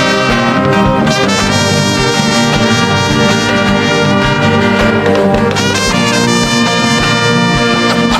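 Instrumental background music: long held chords that change about a second in and again past the middle, over a steady low beat.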